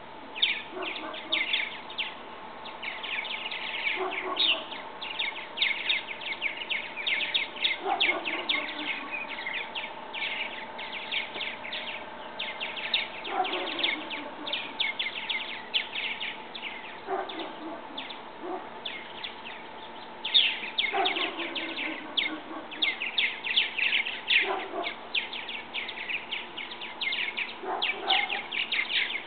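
Purple martins chirping and chattering in a dense, continuous run of quick calls, with a lower, falling call coming back about every four seconds.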